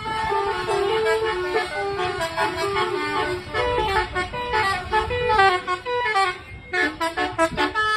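Bus 'telolet' musical horns playing quick stepping tunes, turning into short rapid toots about seven seconds in, over a low rumble.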